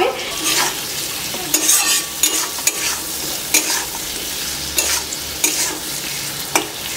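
Metal spatula stirring and scraping onion and tomato frying in oil in a metal kadhai: a steady sizzle broken by frequent, irregular clicks and scrapes of the spatula against the pan.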